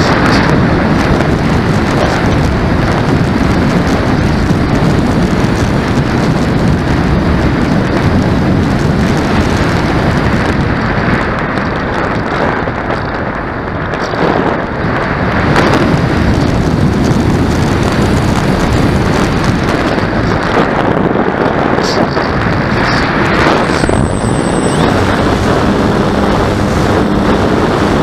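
Wind buffeting the microphone: a loud, steady rushing. About three seconds before the end, a steady low hum joins in.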